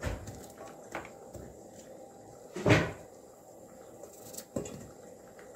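Kitchen handling sounds: a few light knocks and clicks, with one louder clunk about two and a half seconds in.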